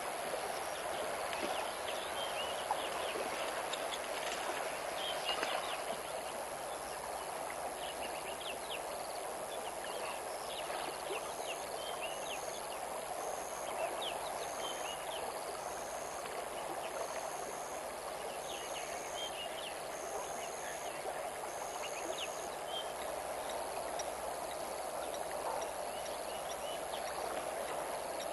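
River water running steadily, with scattered bird chirps over it and a repeated short high note, about one a second, through the middle.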